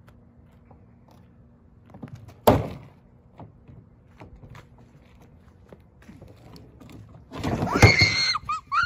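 A large plastic trash can is tipped over and hits the concrete driveway with one loud thunk. Near the end comes a burst of noise and high, whining animal cries.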